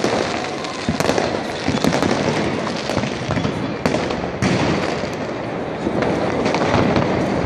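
Fireworks rockets and firecrackers going off all around: a continuous crackling barrage of bangs, with sharper, louder bangs about a second in and twice near four seconds in.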